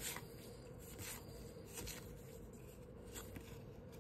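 Stack of Bowman baseball cards being flipped through by hand, the card stock sliding against itself in a few soft, short swishes.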